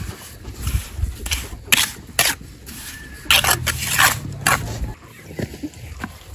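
A trowel working wet cement mortar around a stone being set into a path: a string of short scrapes and knocks, the loudest and closest together in the middle.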